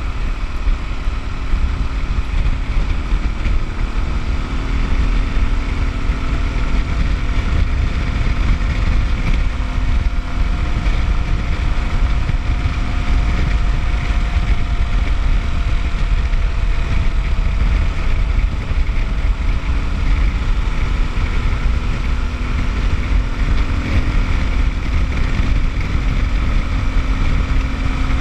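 Kawasaki KLX250's single-cylinder four-stroke engine running under way, its pitch drifting gently up and down, with heavy wind noise on the microphone.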